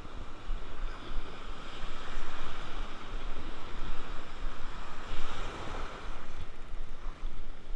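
Sea surf breaking and washing in the shallows, rising in a louder surge about five seconds in, with wind buffeting the microphone.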